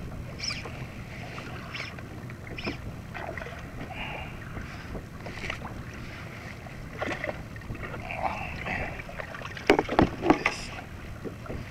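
Sea water lapping and splashing against a kayak hull, with wind and scattered small knocks and splashes while a hooked calico bass is brought alongside. About ten seconds in comes a brief flurry of sharp knocks and splashing, the loudest part, as the fish is lifted out of the water.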